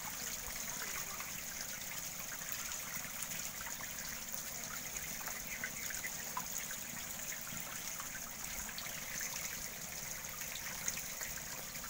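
Steady splashing and trickling of water in a biofloc tank packed with magur catfish, with small scattered splashes throughout.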